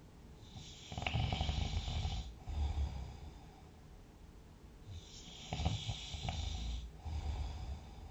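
A person snoring in deep sleep: two rattling snoring breaths about four seconds apart, each followed by a shorter, lower snore.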